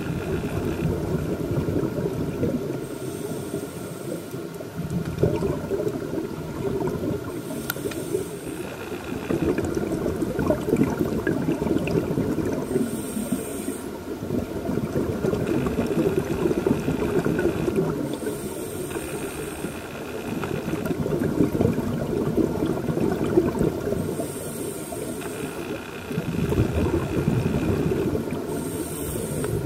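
Scuba divers breathing through regulators underwater: a crackling rush of exhaust bubbles that swells and eases with each breath, and a short hiss on the breaths in, repeating every few seconds.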